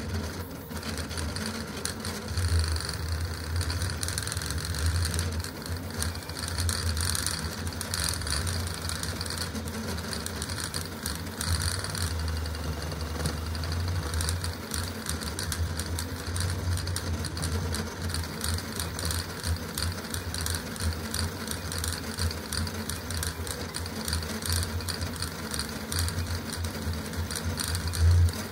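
Custom CoreXY 3D printer printing at high speed (600 mm/s, 80,000 mm/s² acceleration): its stepper motors buzz and whine in quick, constantly changing bursts as the belt-driven toolhead darts back and forth. A brief louder knock comes near the end.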